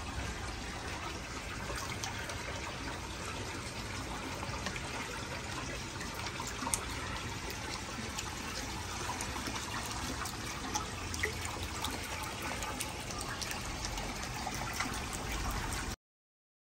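Steady splashing and trickling of water in a koi pond, its surface churned and bubbling; it cuts off suddenly near the end.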